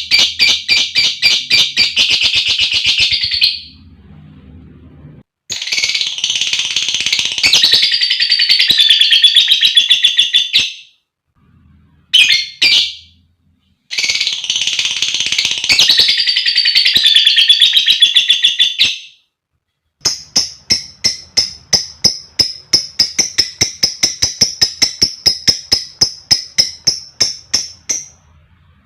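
Female lovebird calling in several bursts of rapid, high chattering notes a few seconds each, then a long even trill of about four notes a second lasting some eight seconds near the end.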